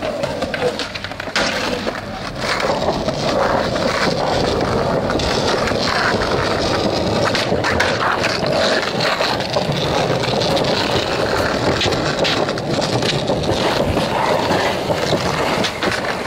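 Skateboard wheels rolling steadily over rough concrete pavement, with a few short knocks from the board.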